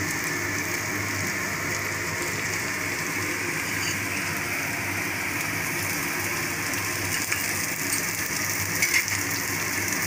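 Spiced mashed potato frying in oil in a nonstick kadai, a steady sizzle, with a few faint scrapes of a wooden spatula stirring near the end.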